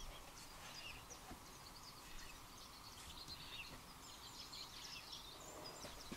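Faint birdsong, many short scattered chirps, over quiet room tone.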